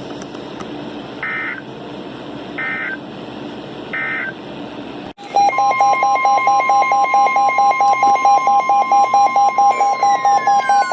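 Emergency Alert System weather-radio audio. Over static hiss come three short digital data bursts, the end-of-message code that closes a warning. About five seconds in, it cuts to a loud alert: a steady high tone with a lower beep pulsing about four times a second, and falling glides joining near the end.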